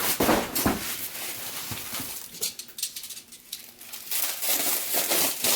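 Packaging and parts being handled during unboxing: a few knocks in the first second, then rustling that picks up again after about four seconds.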